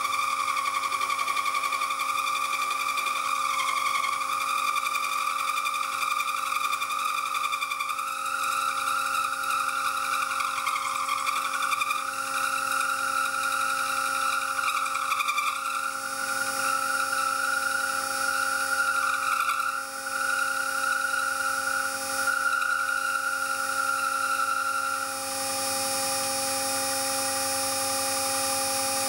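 Solid carbide end mill cutting a slot into a metal block on a milling machine: a steady, high singing whine that wavers and creeps slightly upward in pitch, over the machine's steady running hum. Near the end the cutting whine stops and only the machine's running tones remain.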